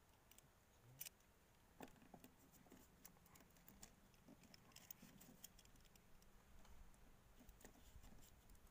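Near silence, with a few faint scattered clicks and taps.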